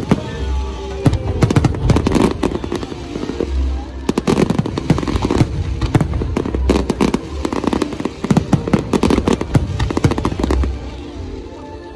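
Fireworks bursting in quick succession, deep booms mixed with dense crackling, over music; the bursts ease off near the end.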